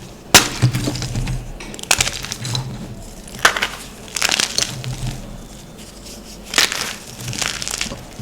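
Gym chalk being crushed and crumbled: a series of sharp, crackly crunches, one every second or two, the loudest about half a second in.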